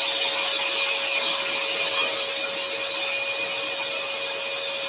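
Axminster Trade AT406SS scroll saw running, its spiral blade cutting through a wooden panel, with the dust extraction under the table running too: a steady mechanical hum and hiss.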